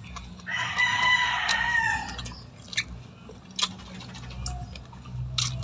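A rooster crowing once: a single call of nearly two seconds that dips in pitch at the end, followed by a few scattered sharp clicks.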